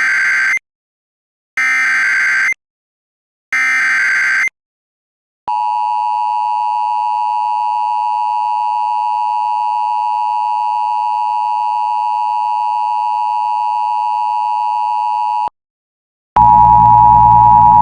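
Emergency Alert System tones. First come three short warbling data bursts of the SAME header, about two seconds apart. Then a steady two-tone EAS attention signal plays for about ten seconds and cuts off suddenly. Near the end a shorter steady tone starts over a low hum.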